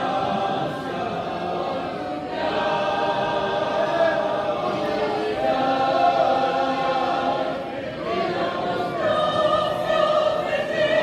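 Church choir singing together, its phrases breaking briefly about two seconds in and again near eight seconds.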